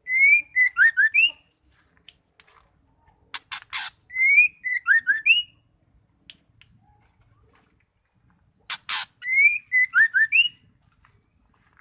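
Female white-rumped shama calling: a short phrase of a few quick rising and falling whistled notes, given three times, each of the later two preceded by a pair of harsh rasping notes.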